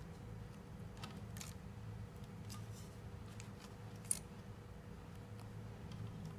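Khors silicone grip tape being stretched and pressed by hand around a hockey stick shaft: faint, scattered crackles and clicks as the tape pulls and sticks, with one sharper click about four seconds in. A steady low hum runs beneath.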